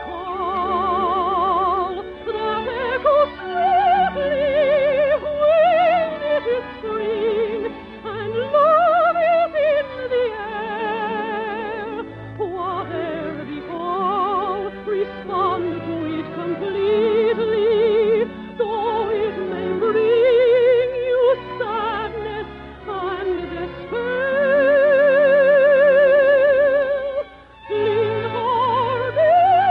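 Operatic soprano singing a slow song with strong vibrato, holding long notes and rising and falling through phrases over instrumental accompaniment. It is heard with the narrow, dull top of an early-1950s radio broadcast recording.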